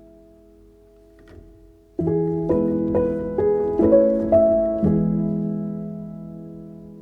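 Soft solo piano background music: a chord fades away, then after about two seconds a short run of notes leads into another held, decaying chord.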